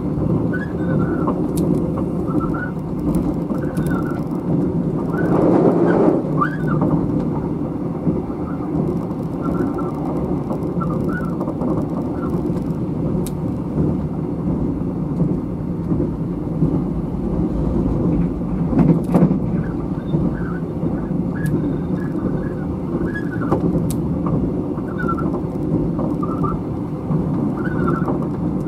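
Running noise inside a State Railway of Thailand sleeper express carriage: a steady rumble of the wheels on the rails, with short squeaks scattered through it and louder jolts about six and nineteen seconds in.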